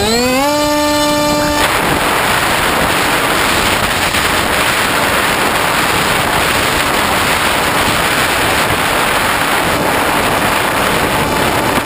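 Electric motor and propeller of a Hobbyking Bixler model plane, heard from an onboard camera: the motor finishes spooling up with a rising whine, holds a steady whine for about a second and a half, then the sound turns into a steady rush of propeller and wind noise as the plane takes off and climbs.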